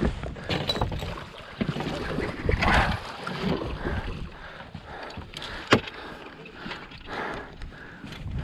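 Water lapping and splashing against a boat hull, with sharp clicks from a lifejacket zipper knocking against the camera microphone. The loudest click comes a little past halfway through.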